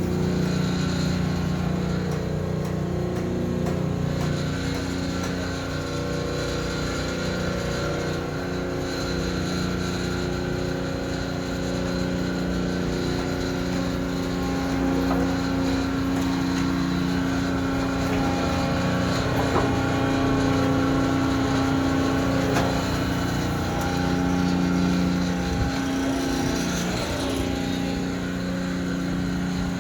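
Concrete mixer truck's engine running steadily, with a constant low hum and slight shifts in pitch.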